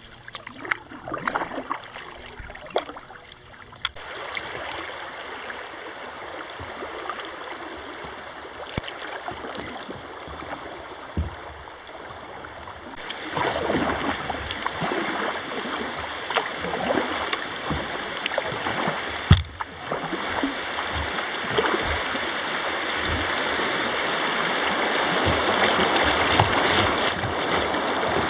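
Little Wolf River water rushing past the boat, growing louder as the current picks up ahead of the rapids, with a few splashes in the first few seconds and a single sharp knock about two-thirds of the way through.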